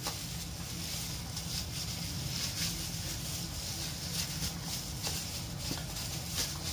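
Pork chops being mixed by a gloved hand in soy-sauce marinade in a stainless steel bowl: soft, irregular wet squishing with faint taps, over a steady low hum.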